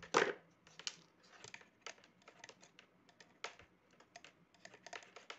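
Yellow copper electrical wire being stripped of its plastic insulation and its bare strands handled in the fingers: a run of irregular small clicks and crackles, the loudest just at the start.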